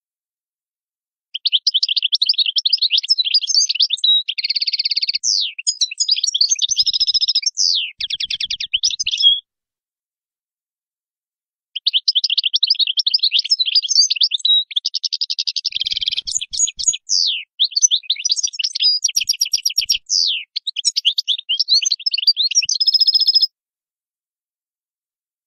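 European goldfinch singing two long phrases of rapid twittering, with a pause of about two seconds between them. The phrases mix rattling trills and quick falling notes.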